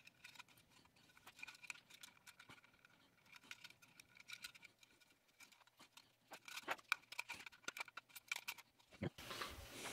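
Faint, irregular small metallic clicks and scrapes of screws being turned out by hand from a steel electrical box, with the box being handled. A steady hiss starts near the end.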